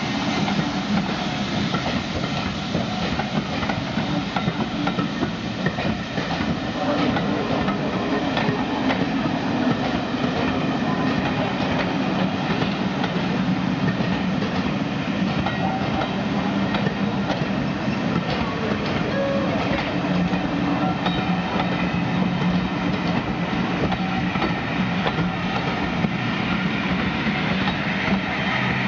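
Passenger coaches of a steam-hauled train rolling past close by: a steady rumble and clatter of their wheels on the rails.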